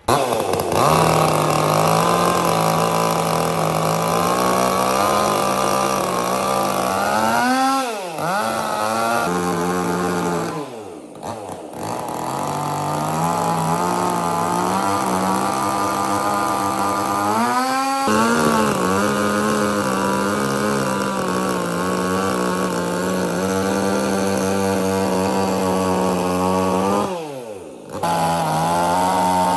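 Chainsaw running at high revs while cutting wood. The engine note drops away and revs back up four times: about 8, 11, 18 and 27 seconds in.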